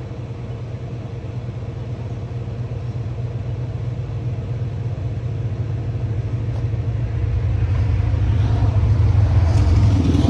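A steady low mechanical rumble that grows gradually louder.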